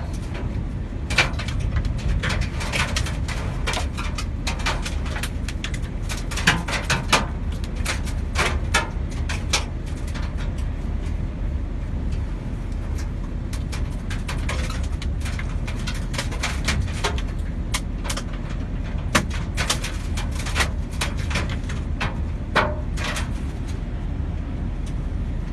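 Strong tornado wind rumbling on the microphone, with many sharp clattering knocks scattered throughout.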